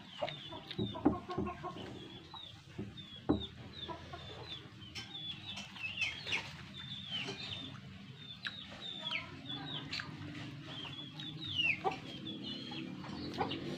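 Chickens clucking and chirping, with many short, high, falling chirps scattered throughout, and a few faint taps mixed in.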